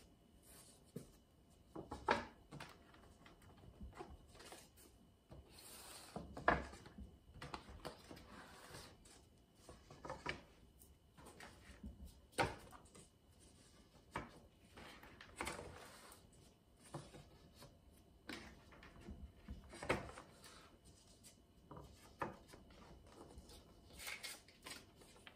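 Rigid cork-backed place mats being handled and laid down on a wooden table: rubbing and sliding, with a light knock or clack about every two seconds as each mat is set down or squared up.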